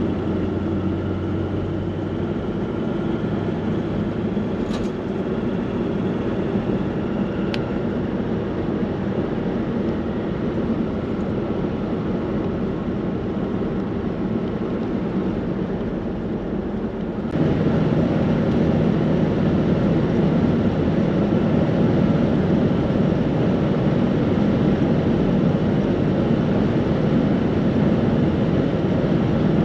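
Car driving at speed on a sealed country road: steady tyre and engine road noise heard from inside the cabin. A little past halfway the noise suddenly becomes louder and brighter, and it stays that way.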